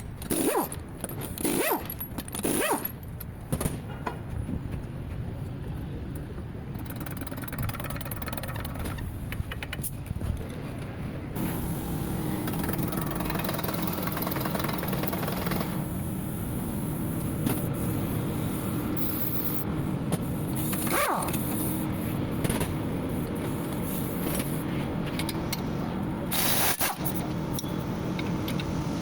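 Car running with a steady low drone, the noise of a worn front wheel bearing. Several sharp knocks come in the first few seconds.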